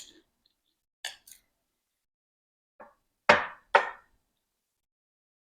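A few short, sharp knocks during eating, with the two loudest about half a second apart a little over three seconds in.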